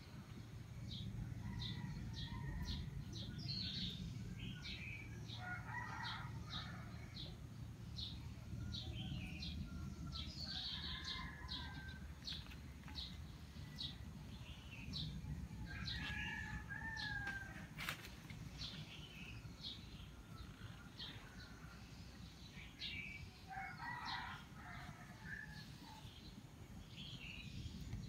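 Small birds chirping in short, sharp, repeated notes, about two a second, with other bird calls and now and then a rooster crowing, over a steady low rumble.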